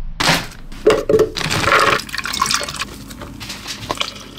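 Milk pouring into a blender jar onto fruit and protein powder, with a few sharp knocks and clinks of ingredients going into the jar.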